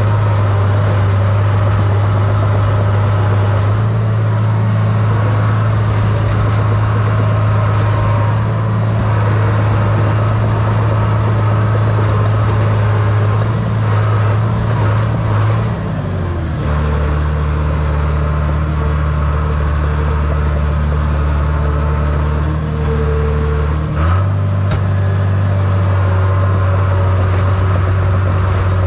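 Small crawler dozer's diesel engine running steadily as the machine pushes snow. About halfway through, the engine note drops lower for several seconds, then comes back up sharply.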